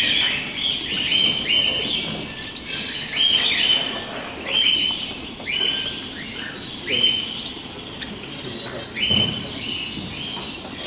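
Many caged domestic canaries singing at once: overlapping chirps and rolling trills, one after another, with no break.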